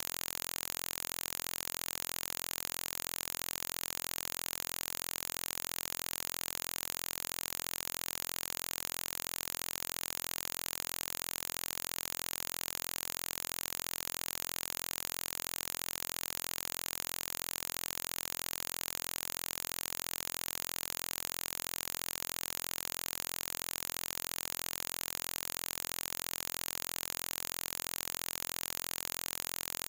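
Steady hiss of static that does not change, with no other sound: the noise floor of a security camera's audio.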